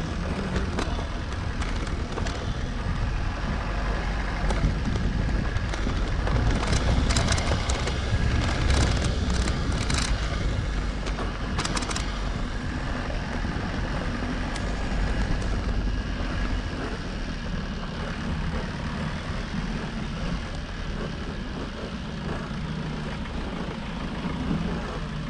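Motorcycle engine running steadily while riding a rough unpaved track, with road and wind noise throughout; a cluster of sharp clicks and rattles comes about seven to twelve seconds in.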